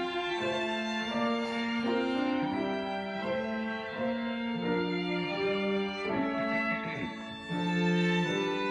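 Two violins, a cello and a piano playing a classical chamber piece together, with held bowed notes changing every half second to a second.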